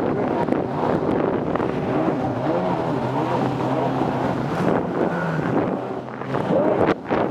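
Jet ski engine running steadily at speed, with wind buffeting the microphone. The engine dips briefly about seven seconds in, and a few sharp knocks follow near the end.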